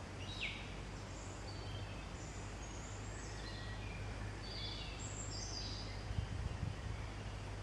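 Small birds chirping, with short high chirps and trills scattered throughout over a steady low hum. A few low bumps come near the end.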